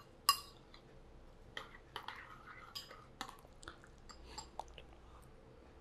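Two eggs being beaten with chopped vegetables in a ceramic bowl with a metal spoon: soft wet stirring with irregular light clinks of metal against the bowl, the sharpest one just after the start.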